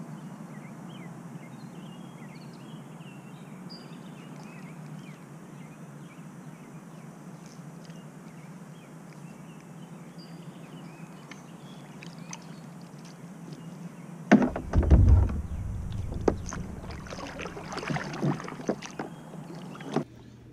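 Fishing kayak on the water: a steady low hum with faint, short high chirps. About two-thirds of the way in come a cluster of loud thumps and then scattered knocks and clicks of gear being handled in the kayak.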